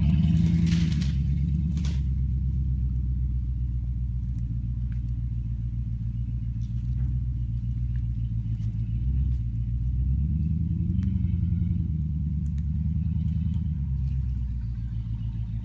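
Range Rover Classic's 4.6-litre V8 engine pulling the truck over a small sand hill, then running at low revs as it drives off and grows fainter, with two brief rises in revs. A few knocks sound in the first two seconds.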